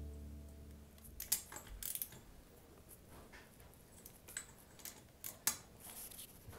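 Scattered light metallic clicks and clinks of a wrench on the cylinder head nuts as they are tightened down, with background music fading out in the first second.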